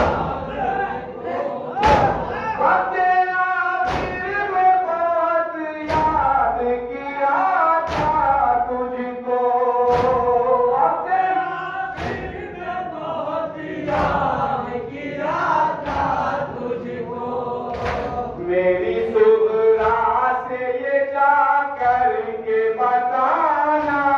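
Men chanting a Shia nauha (Muharram lament) together, with the whole group beating their chests in unison (matam), a sharp slap about every two seconds.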